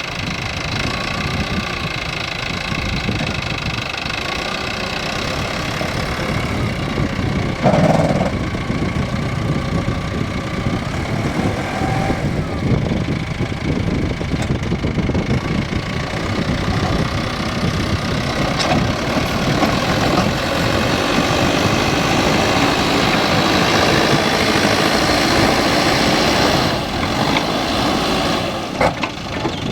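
Diesel engine of a JCB earthmoving machine running steadily as it works, with a loud knock about eight seconds in and the engine getting a little louder after about twenty seconds.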